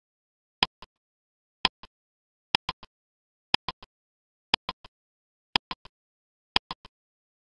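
Countdown-timer clock ticking sound effect, one sharp tick a second, each tick trailed by one or two fainter clicks, seven ticks in all.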